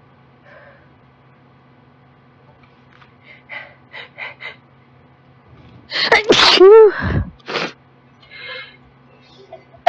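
A girl's allergic sneezing fit: a few short catching breaths about halfway through, then a loud sneeze with a falling voiced cry about six seconds in and a short follow-up. The next sneeze bursts out right at the end.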